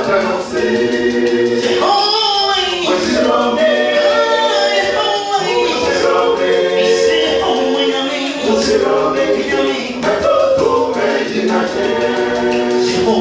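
A cappella gospel vocal group of male and female voices singing in close harmony into handheld microphones, with held chords and no instruments.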